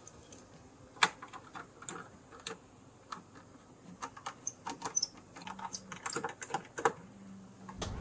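Scattered small clicks and taps of a screwdriver, screws and fingers on a PS4 Pro's plastic chassis and cooler fan as the fan is unscrewed and freed. The sharpest click comes about a second in, with a quicker run of clicks in the second half.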